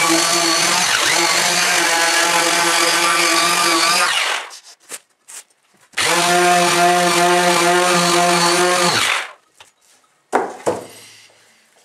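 Electric orbital sheet sander running over beech planks with a steady motor hum, switched off about four seconds in, started again two seconds later, and winding down after about three seconds more. Two sharp wooden knocks follow near the end as the wooden shield is handled.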